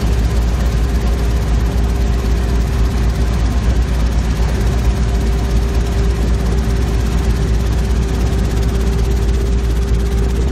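Robinson R22 helicopter's piston engine and rotor heard from inside the cockpit: a loud, steady, deep drone with a constant hum over it.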